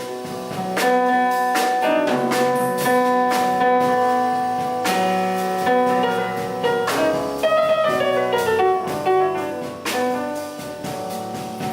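Jazz piano trio playing: piano chords and melody notes held and changing every second or so, with frequent drum and cymbal strokes.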